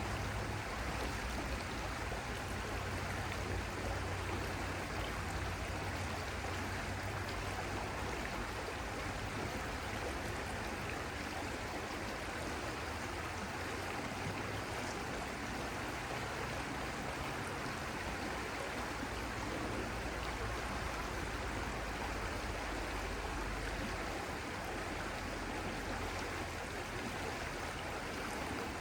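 Stream water flowing in a steady, even rush with no pauses.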